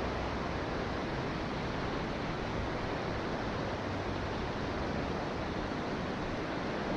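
Steady rush of river water flowing around a kayak, an even hiss with no break.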